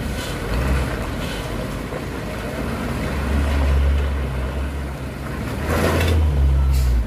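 A tanker truck's diesel engine rumbling low as the truck crawls away over a deeply rutted, potholed dirt road, swelling twice. There is a short hiss about six seconds in.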